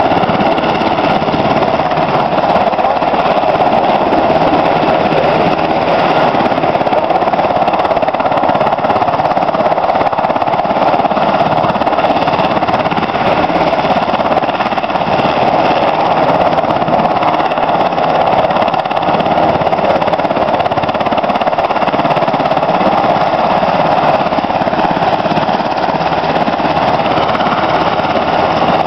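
U.S. Coast Guard MH-60 Jayhawk helicopter running on the ground with its rotors turning: a loud, steady, rapid chop of the blades over a high, even turbine whine.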